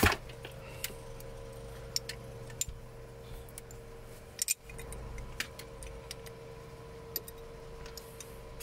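Scattered light clicks and taps as a CO2 cartridge is handled and fitted into an airsoft pistol's CO2 magazine, the loudest click right at the start. A steady low hum runs underneath.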